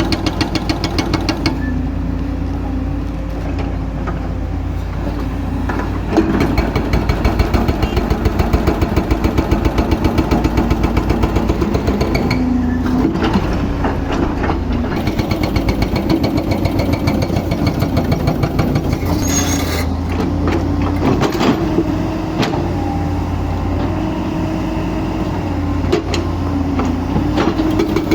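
Excavator-mounted hydraulic breaker hammering in rapid, regular blows, several a second, over the excavator's diesel engine running under load. The blows are lighter for a few seconds near the start, then heavier.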